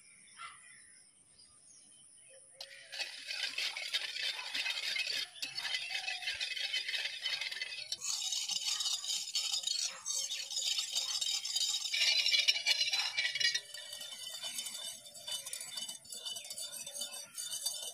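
Wire whisk beating milk and cornflour in a metal pan: a fast, continuous scraping and clinking of the wires against the pan with liquid sloshing, starting about three seconds in and easing a little near the end.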